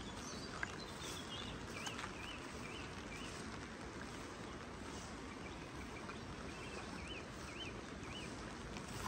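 Steady rain hiss with a small bird singing short up-and-down chirps in two runs of a few notes, about a second in and again about seven seconds in. A couple of sharp taps stand out, the loudest about half a second in.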